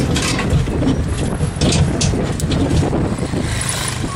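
Steady rumble of a moving vehicle's engine and road noise, with wind buffeting the microphone.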